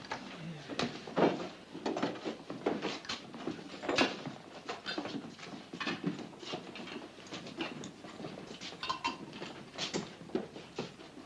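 Many people's footsteps shuffling and stepping, mixed with scattered knocks and scrapes, as a group of men moves out of a small room.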